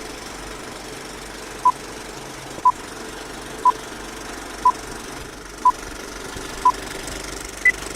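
Electronic beeps over a steady hum: six short, identical beeps one second apart, then a single higher-pitched beep, like a timed countdown ending on a higher tone.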